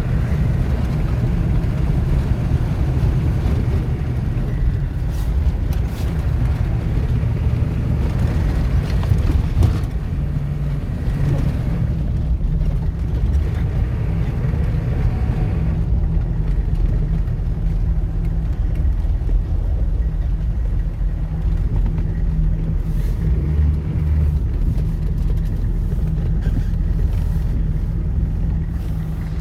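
H1 Hummer engine running steadily as the truck drives through snow, a continuous low drone.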